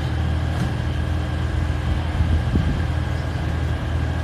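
Batara Kresna railbus's underfloor diesel engines running with a steady low drone as the train moves off slowly from the platform.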